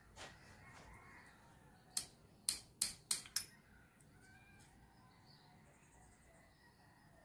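Sharp metallic clicks and taps, about five in quick succession between two and three and a half seconds in. They come from a magnetic pick-up tool and a valve tappet bucket knocking against a Suzuki Hayabusa's aluminium cylinder head.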